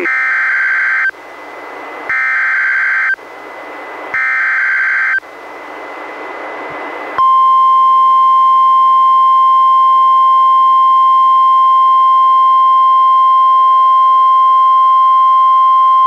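NOAA Weather Radio SAME header opening a Special Marine Warning: three bursts of digital data tones about a second long, each followed by a second of radio hiss, then the steady 1050 Hz weather radio alert tone from about seven seconds in.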